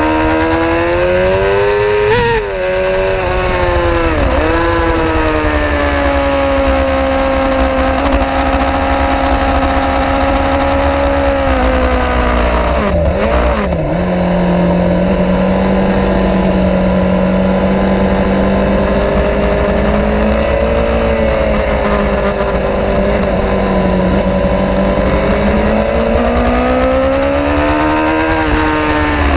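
Suzuki GSX-R 750's inline-four engine at high revs on track, heard onboard with wind noise. It climbs through two quick upshifts in the first few seconds and holds a steady high note, then drops with downshift blips about twelve to fourteen seconds in under braking. It runs steady at lower revs for a long stretch and climbs again hard near the end.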